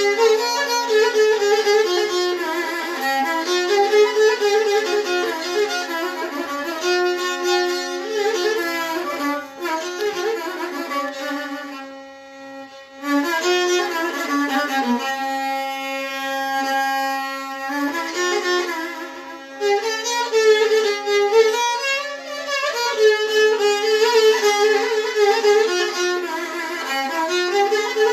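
Solo violin playing a Turkish taksim, an improvised free-flowing melody over a steady low held note. The playing briefly softens about twelve seconds in, then picks up again.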